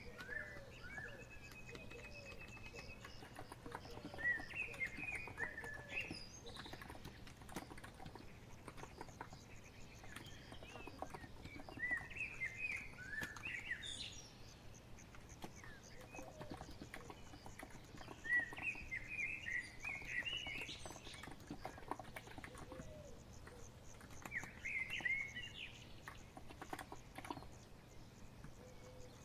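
Continuous typing on a COX Empress electro-capacitive keyboard, a soft, dense patter of key presses. Short chirping birdsong phrases come in every five or six seconds.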